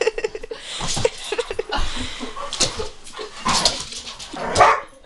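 Dog whimpering and yipping excitedly in rough play: a quick string of short high whines in the first couple of seconds, then three louder, rougher cries.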